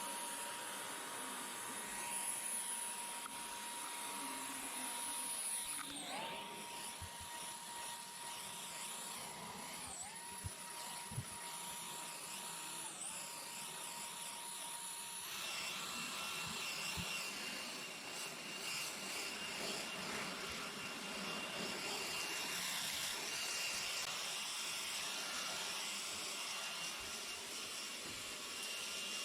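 Panasonic cordless stick vacuum cleaner running steadily. Its motor whine dips briefly in pitch three times, then shifts to a different, higher whine about halfway through.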